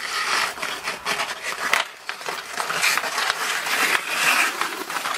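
Hockey skate blades scraping and carving on outdoor rink ice, with a few sharp clacks of sticks against the ice and puck.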